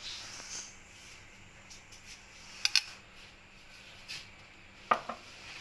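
A metal spoon clinking lightly against a glass sauce bottle and a clay bowl: a quick pair of clinks near the middle and two single ones later, with soft handling noise between.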